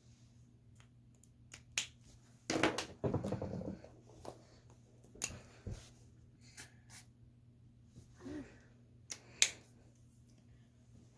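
Sharp plastic clicks and a short rattle from art markers being handled: markers knocking together at about 2.5 s, then caps pulled off and snapped on, the loudest click near the end.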